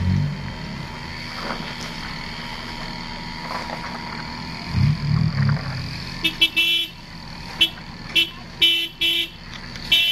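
A small pickup truck's engine running as it crawls through deep mud, then, from about six seconds in, a vehicle horn giving a string of short toots, some in quick pairs and triplets.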